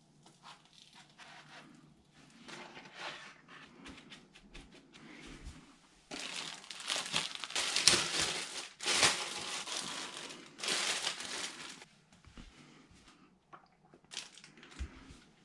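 Plastic bread bag crinkling and rustling as it is opened and slices of bread are pulled out, loudest for several seconds in the middle. Quieter rustles and light knocks of handling come before and near the end.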